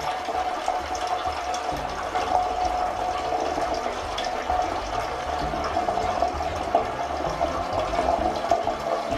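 Cold water rushing steadily through the wort chiller's hoses and valve, with a faint steady tone over the flow.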